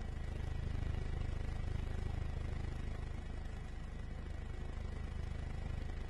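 Helicopter rotor and engine running steadily: a low, rapid pulsing with a thin high whine above it.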